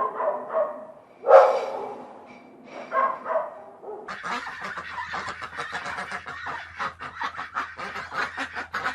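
Waterfowl calling: a few separate loud calls, the loudest about a second in, then from about four seconds in many rapid overlapping calls as from a flock.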